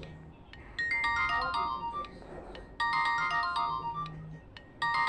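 Nokia 1280 mobile phone playing one of its built-in ringtones: a short, bright phrase of quick notes repeated about every two seconds.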